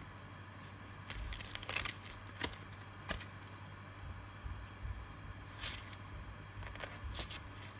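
Cloth hand wrap rustling and brushing as it is wound around the hand and wrist, in a series of short swishes, busiest about a second in.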